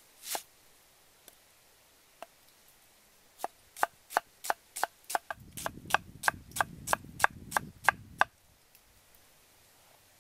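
Cleaver slicing a white onion on a thick wooden chopping block: one chop, a couple of light taps, then a quick even run of about sixteen chops at roughly three a second, with a low rumble under the later strokes, before it stops.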